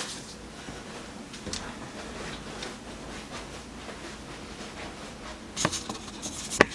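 Faint rustling and handling noises, with a few sharp clicks or taps near the end.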